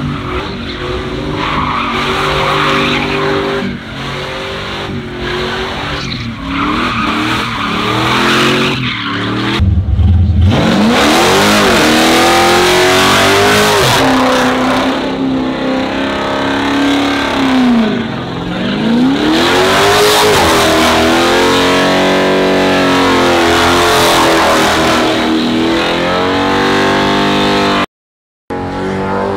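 Pickup truck doing a burnout: its engine revs up and down several times while the rear tires spin and squeal on the pavement. Everything gets much louder about a third of the way in, and the sound cuts out briefly near the end.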